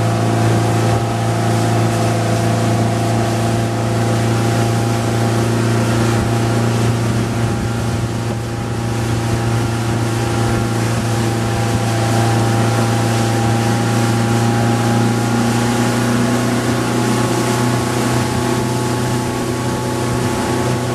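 Motorboat engine running steadily at speed while towing two inner tubes, with the rush of the churning wake.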